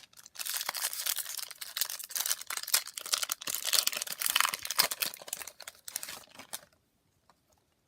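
Foil Pokémon booster pack crinkling and crackling as it is handled and torn open, going quiet about a second before the end.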